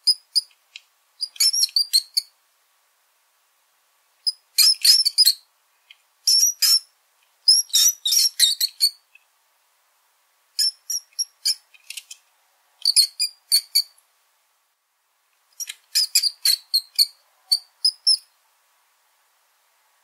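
Small rodent squeaking: about eight clusters of rapid, very high-pitched squeaks, each lasting a second or so, separated by short silences.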